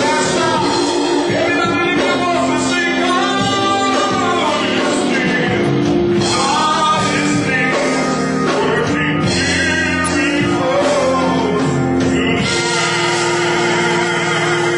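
Gospel worship music: a singer over a live band, playing loudly and steadily.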